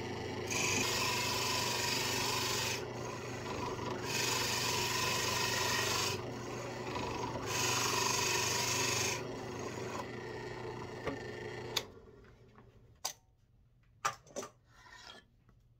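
Drill press boring into a wood block with a Forstner bit: the motor runs steadily while the bit cuts in three spells of about two seconds each. The motor stops a little before twelve seconds in, followed by a few light knocks.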